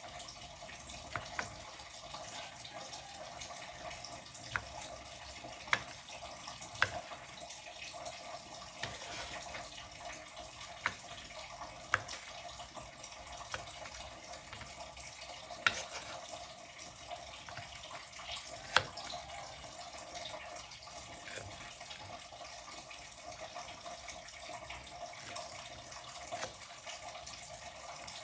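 Tap water running steadily into a kitchen sink, with about ten sharp clinks spread through it.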